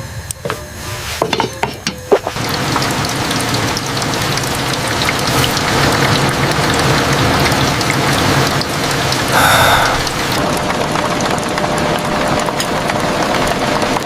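A few light clicks, then a steady, dense hiss sets in about two seconds in and holds, swelling briefly a little past the middle.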